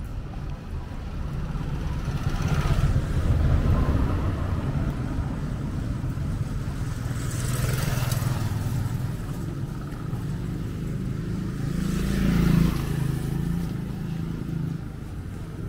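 Street traffic: motor vehicles passing one after another with their engines running. The louder passes come about three seconds in, about eight seconds in, and, loudest, a little past twelve seconds.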